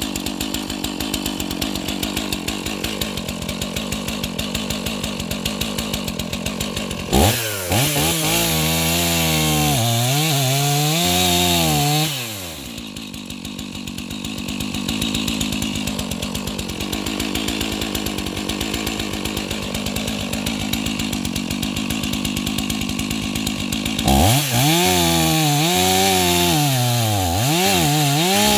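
Stock (unmodified) gas chainsaw running steadily, with the throttle opened and closed in quick surges from about seven seconds in, settling back to a lower, steadier running in the middle, then surging up and down again near the end.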